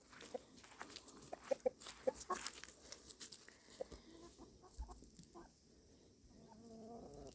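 Chickens clucking faintly: a scatter of short calls through the first half, then a longer call near the end.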